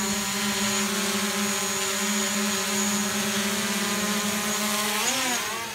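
Quadcopter drone hovering close by, its propellers giving a steady, even-pitched buzz. About five seconds in, the pitch dips and swings as the motors change speed.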